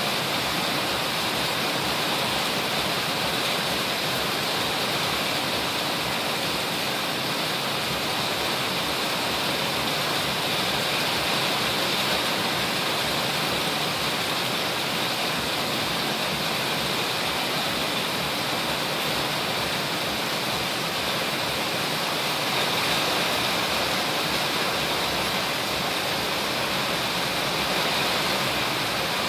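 Heavy monsoon rain pouring steadily: a dense, even hiss of downpour with no let-up.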